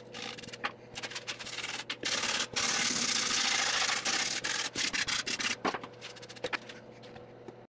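A hand tool scraping and scrubbing softened paint off the wooden top of a chemically stripped box, as a dry, gritty rasping with scattered small ticks. It is heaviest in the middle and cuts off suddenly near the end.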